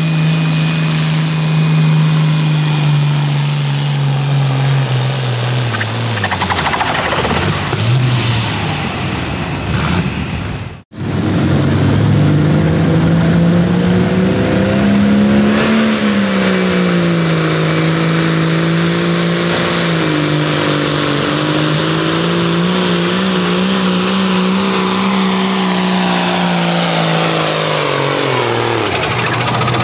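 Turbocharged diesel engines of hot farm pulling tractors at full throttle under load. First an International Harvester, its engine pitch sagging about a third of the way in. Then, after a sudden cut, a John Deere 4430 whose engine climbs, wavers with a high whistle rising in pitch, and drops away near the end.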